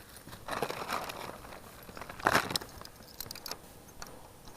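Metal solar-panel mid clamps clinking and rattling as they are picked up and handled, with a sharper knock about two seconds in and a few light clicks after.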